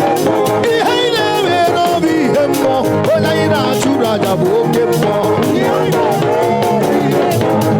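Live praise music with drums keeping a fast, steady beat under voices singing.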